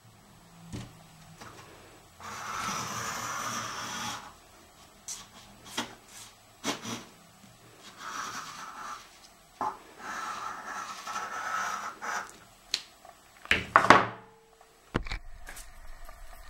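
Large metal beam compass handled on paper: clicks and knocks as it is set down and moved, and its pencil lead scraping across kraft paper in several stretches of a second or two as a large circle is drawn. A cluster of sharp knocks near the end is the loudest sound.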